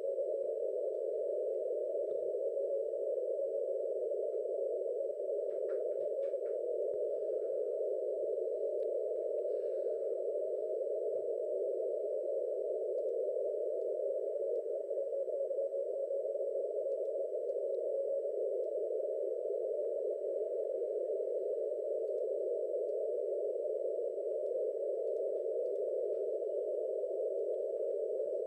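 Shortwave transceiver receiving the 30-metre band in CW mode: steady band noise through a narrow filter, heard as an even hiss pitched around 500 Hz. The DX station's Morse signal is too weak to stand out from it.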